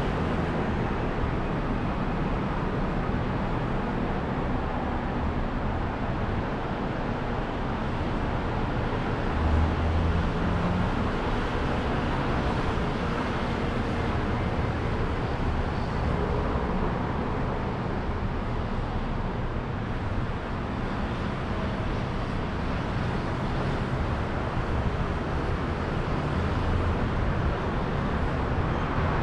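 City street traffic noise: a steady hum of passing vehicles, with a low rumble that swells briefly about ten seconds in.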